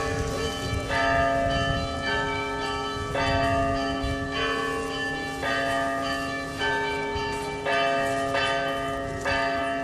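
Orthodox church bells ringing: several smaller bells struck in a quick pattern about once a second, over the steady hum of a larger bell.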